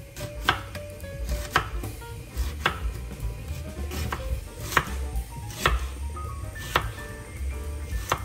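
Kitchen knife chopping a white onion finely, with sharp irregular strokes about one a second.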